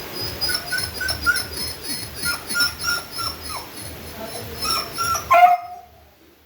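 Beagle whimpering and whining in a quick series of short, high-pitched cries, ending with one louder falling cry about five seconds in.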